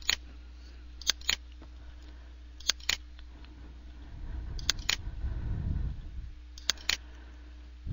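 Computer mouse clicking as drop-down list entries are chosen: four pairs of short sharp clicks about two seconds apart, over a steady low hum.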